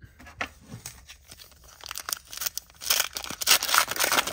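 A foil trading-card pack wrapper being torn open by hand and crinkling, a few faint rustles at first, then a dense run of crackling tears over the last couple of seconds.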